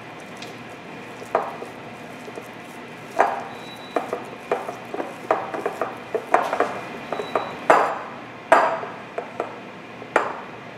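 Hands mixing chickpea-flour dough in a ribbed glass bowl: irregular knocks and clinks against the glass, about a dozen, each ringing briefly.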